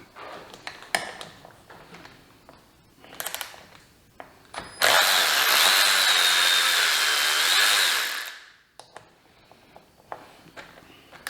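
A power tool starts abruptly about five seconds in, runs steadily with a high whine for about three seconds, then winds down. A few knocks and clicks of handling come before it.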